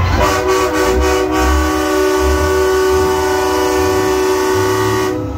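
Semi truck's air horn sounding one long steady blast for about five seconds, stopping shortly before the end, over the low rumble of the truck's engine.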